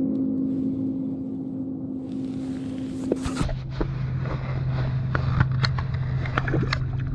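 A boat motor running steadily. Its hum drops abruptly to a lower pitch about three and a half seconds in, and scattered clicks and knocks follow.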